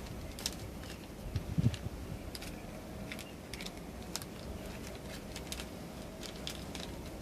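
Spoon stirring seasoned chicken pieces in a cooking pot: irregular light clicks and scrapes, with one louder knock about a second and a half in.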